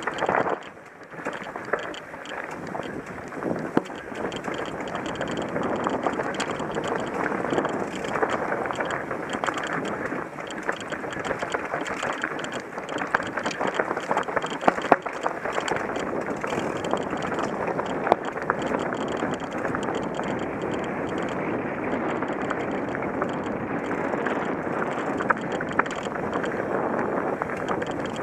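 Mountain bike descending a rocky dirt singletrack: a continuous rush of tyre noise over loose stones, with the bike rattling and knocking many times as it rolls over rocks. The noise dips briefly about a second in.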